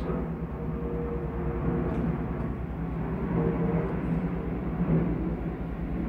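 Steady low rumble of a train passing close by, with a low hum running through it.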